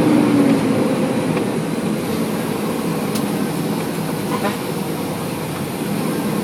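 Fire engine running on the road, heard from inside its cab: a steady engine and road rumble. A steady tone carried over from before fades out within the first second.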